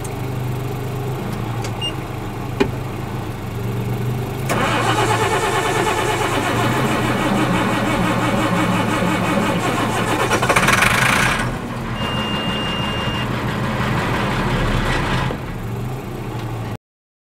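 Caterpillar 3126 MUI diesel engine being cranked on the starter, then growing louder about four and a half seconds in as it fires and picks up speed, loudest around eleven seconds before easing back to a steady run. It is an engine that is hard to start. The sound cuts off suddenly near the end.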